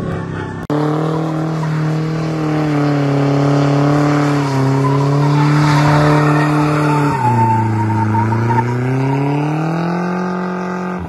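Pickup truck drifting: the engine is held at high revs while the rear tyres squeal and skid. The engine note drops about seven seconds in and then climbs back up. The sound breaks off sharply less than a second in.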